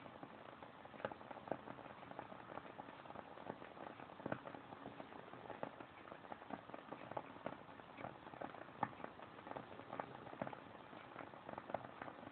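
Wooden-wick candle burning with a soft, irregular crackle: many small pops and clicks over a faint hiss.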